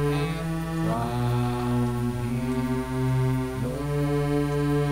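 A cappella SATB voices singing a hymn in long held chords, with the bass part strong. The chord changes about a second in and again near the end.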